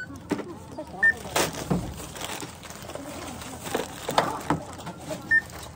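Supermarket checkout: a barcode scanner beeps twice, about four seconds apart, amid knocks and clunks of groceries such as cans and packets being set down on the counter.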